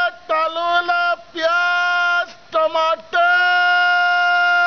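A man singing in a high voice: long held notes with short quick phrases between them, ending on a long held note.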